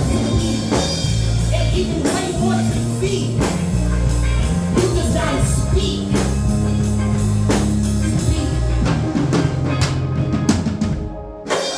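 Band music with a steady drum beat over held bass notes, stopping abruptly near the end.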